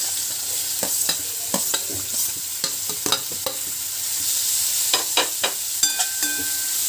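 Chopped onion sizzling in hot oil in a stainless steel kadhai, stirred with a steel slotted spatula that clinks against the pan again and again.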